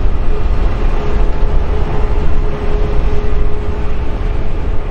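Boeing 737 MAX-8's CFM LEAP-1B jet engines running at taxi power: a steady low rumble with a steady engine whine above it, wind buffeting the microphone.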